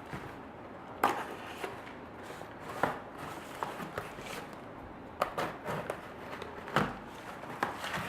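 Packaging being opened by hand: irregular rustling and crackling, with a few sharp crackles or snaps at uneven intervals, the loudest about a second in and again near the end.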